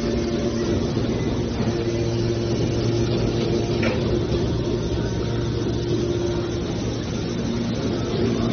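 Hydraulic metal baler's power unit running with a steady hum, and a short click about four seconds in.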